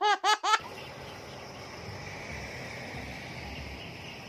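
Steady outdoor ambience with a constant high insect trill, opened by a quick run of four short, arching pitched calls that stop about half a second in.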